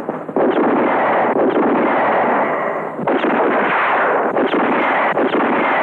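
Film gunfire sound effects: a dense, continuous volley of shots with sharper cracks standing out about once a second.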